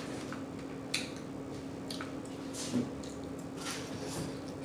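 Close-miked chewing of a mouthful of soft breakfast-bowl food, with wet lip smacks and mouth clicks about once a second.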